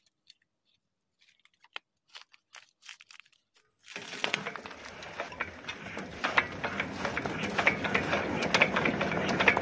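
Diesel tubewell pump engine: a few faint clicks of work on it, then about four seconds in the engine starts and runs with a clattering, getting steadily louder.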